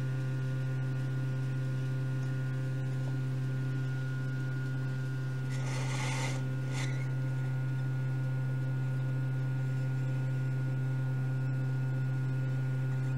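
Hot air rework station running with its blower set low: a steady low hum with higher overtones. A short hiss comes about six seconds in.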